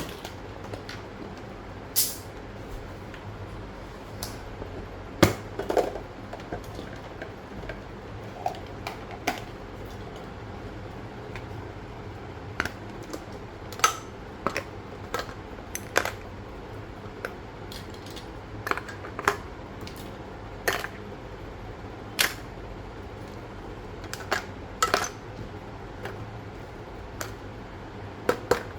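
Scattered sharp clicks and taps from hands working with paper and small crafting tools, irregular and about one every second or two, some louder, over a faint steady hum.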